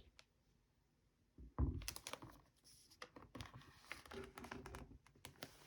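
Cardboard and paper packaging being handled and opened: a sudden bump about a second and a half in, then light crinkling and scattered small clicks.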